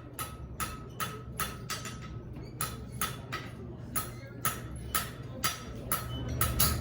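Blacksmith's hammer striking metal on an anvil in a steady rhythm of about two to three blows a second, most blows leaving a short bright ring.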